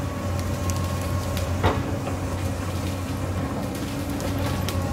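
Hyundai crawler excavator's diesel engine running steadily under working load, with scattered sharp knocks and cracks from the digging, the loudest a bit over one and a half seconds in.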